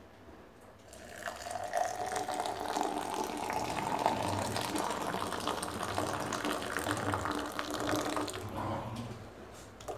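Just-boiled water poured in a stream into a tall glass tumbler over a spoonful of coffee, splashing as the glass fills, with the pitch of the pour rising. The pour starts about a second in and tails off near the end.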